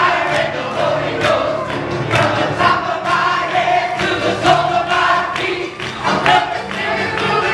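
Live gospel worship song: voices singing together through microphones over a band, with a steady beat.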